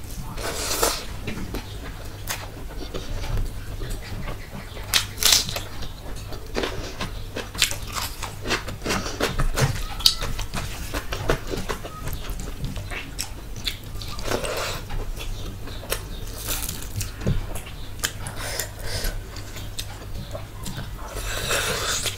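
Close-miked chewing and wet mouth sounds of a person eating rice and chicken curry by hand: irregular smacks, crunches and clicks, with fingers mixing rice in a steel plate now and then. A steady low hum runs underneath.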